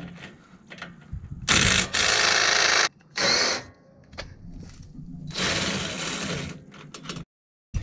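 DeWalt 20V MAX cordless impact driver hammering on an 18 mm bolt to loosen it. It runs in three bursts: a long one about a second and a half in, a short one around three seconds, and another of about a second a little past five seconds.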